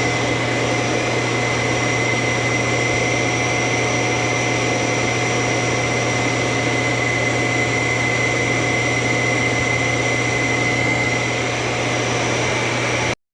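Suction motor of a Roborock robot vacuum system running steadily: an even rush of air with a constant high whine and a low hum, which cuts off suddenly near the end.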